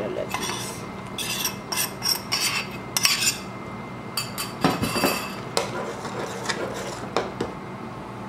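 A metal spoon stirring thick white sauce in a coated cooking pot, scraping and clinking against the pot in irregular strokes.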